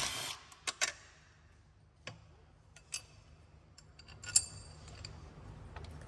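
Scattered light metallic clicks and clinks of hand tools and a bolt being handled during work in the engine bay. The loudest is a short ringing clink about four seconds in, over a faint low hum.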